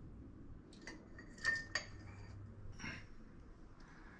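A few light clinks and taps of small hard objects being handled, the strongest about a second and a half in, two of them ringing briefly.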